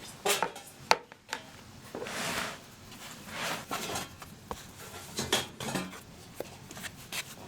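Dishes and utensils being handled: irregular clinks and knocks, with a brief rustle about two seconds in.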